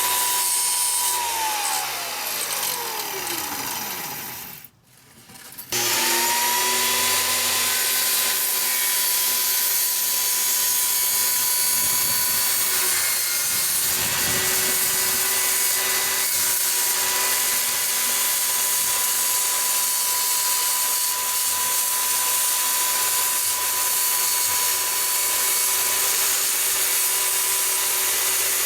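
Circular saw cutting an opening in a door: the motor runs steadily, is let off and winds down over a few seconds, then starts up again about six seconds in and keeps cutting steadily.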